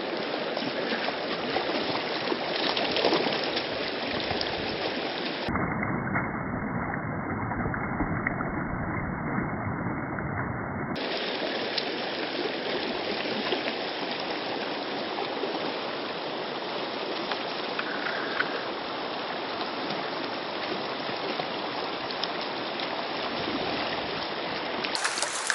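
Shallow mountain stream running fast over a rocky riffle: a steady rush and burble of water.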